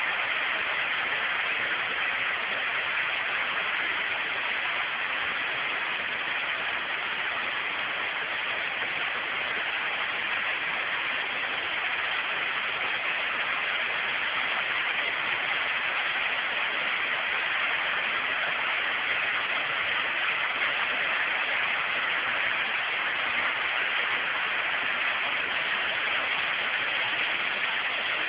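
Waterfall: falling water giving a steady, even rushing hiss, strongest in the upper-middle range.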